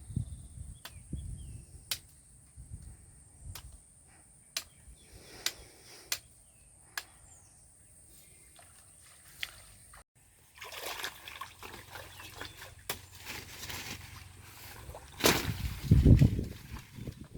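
Sparse sharp clicks or knocks, roughly one a second, over a steady high hiss. After a sudden break about halfway, water splashing and trickling takes over, with the loudest splash near the end.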